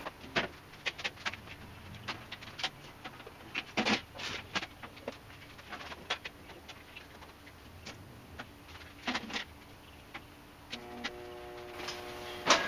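Irregular clicks, clacks and knocks as jump-booster cables and clamps are handled and clipped onto a riding mower's battery. A steady hum with several pitches comes in near the end.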